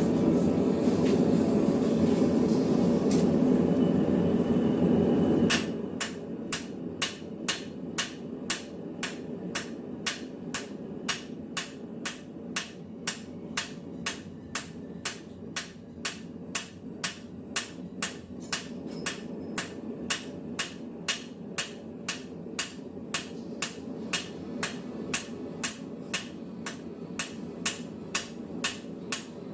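A loud steady roar cuts off suddenly about five seconds in. Then a hand hammer strikes a steel flat bar on an anvil in an even rhythm, nearly two blows a second, over a quieter steady hum.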